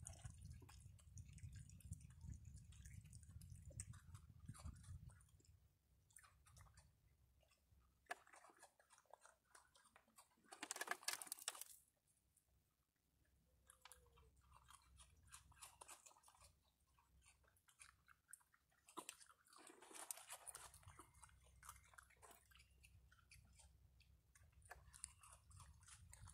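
Raccoons chewing and crunching food, faint, with many scattered small clicks and a louder noisy burst about eleven seconds in.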